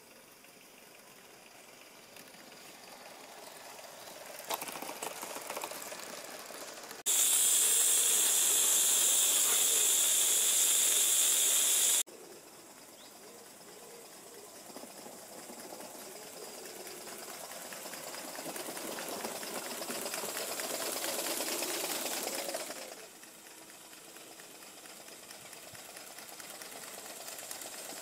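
Gauge 1 live-steam QJ locomotive running, with a loud steady steam hiss that starts and stops abruptly, lasting about five seconds from about seven seconds in. After that the engine's running sound builds up and drops off sharply about five seconds before the end.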